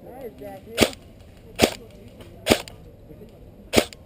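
Airsoft AR10 rifle firing four single shots close to the microphone, each a sharp crack, at uneven intervals of roughly a second.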